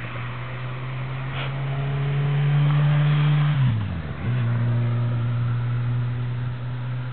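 EMD SD9 diesel-electric locomotive's V16 two-stroke diesel engine running with a steady low drone as it approaches, growing louder toward the middle. About four seconds in, the pitch sweeps sharply down and comes back up, then holds steady.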